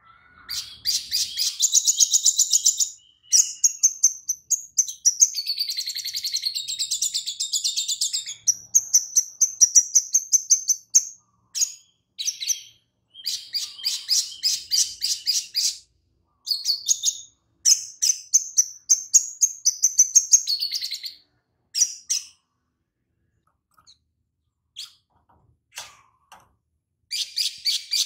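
A caged male olive-backed sunbird (sogon) sings in bursts of rapid, high chattering trills a few seconds long, with mimicked lovebird calls worked into the song. About two-thirds through it drops to a few scattered notes, then takes up the trills again near the end.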